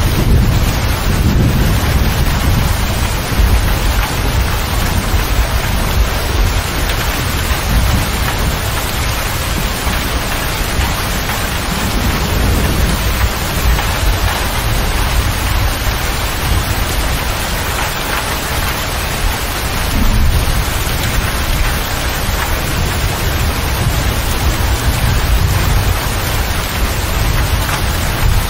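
Heavy rain drumming on the roof and windows of a motor grader's closed cab, heard from inside. A deep low rumble runs underneath and swells near the start and again about twenty seconds in.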